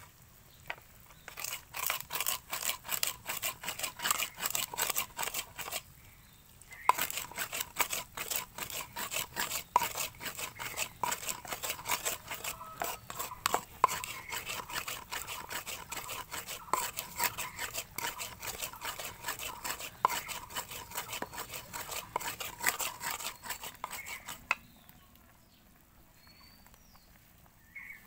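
Rapid, rhythmic scraping as a hand rubs and grinds spice seeds against the rough inside of an unglazed clay bowl. There is a short pause about six seconds in, and the scraping stops a few seconds before the end.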